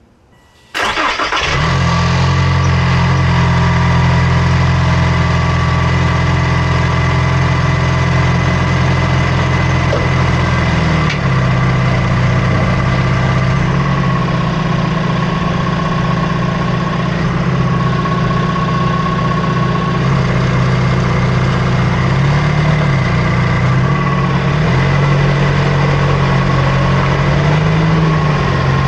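Toyota Tacoma's turbocharged 2.4-litre four-cylinder engine and drivetrain heard close up from under the front of the truck. The sound comes in abruptly about a second in, then runs loud and steady as a low drone with thin high whining tones over it. The drone shifts in pitch a few times.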